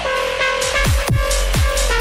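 Electronic dance music: a fast beat with a deep kick drum and bright synth stabs.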